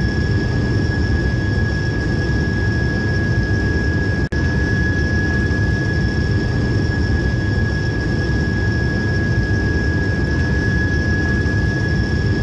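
Train running: a steady low rumble with a constant high whine over it, cutting out for an instant about four seconds in.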